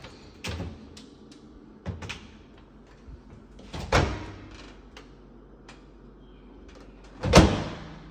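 An electric range's oven door is opened and shut, then an over-the-range microwave door pops open and is clunked shut: four separate knocks, the last the loudest.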